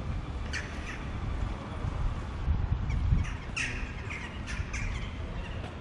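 Several short, harsh bird calls: one about half a second in, then a quick run of four or so just past the middle. Under them is a steady low rumble.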